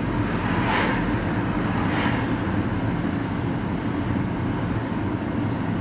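Vehicle engine running steadily at idle, a low even rumble, with two brief soft hisses about one and two seconds in.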